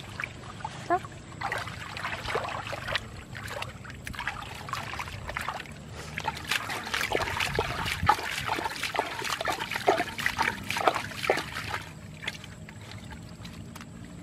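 Hands scooping and groping in muddy water, with many small splashes, slops and trickles. The splashing grows busier about halfway through and eases off near the end.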